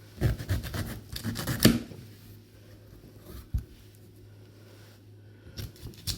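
Short scraping strokes and clicks for about a second and a half, then a single knock about three and a half seconds in and a few more clicks near the end: a pocket knife's tool worked against a halved swede and handled on a hard surface.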